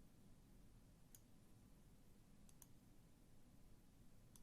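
Near silence with a few faint computer mouse clicks, the last a quick double click near the end.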